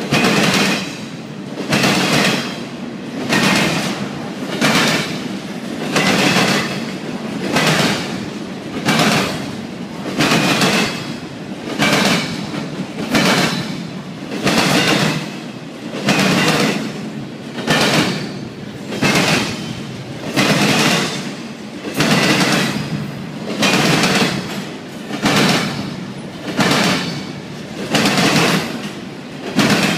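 Wheels of a passing double-stack intermodal freight train clacking over the rail joints in a steady rhythm, with a cluster of clacks about every second and a half as each set of wheels goes by.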